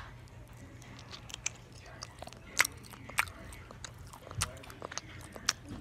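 Close-up ASMR eating into a phone's microphone: a girl biting and chewing, with irregular sharp crunches and mouth clicks, a couple of louder ones around the middle.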